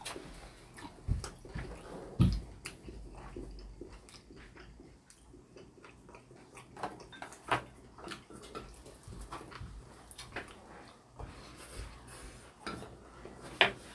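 Eating at the table: chewing on grilled LA galbi (beef short ribs), with scattered small clicks of utensils against dishes and a few dull thumps.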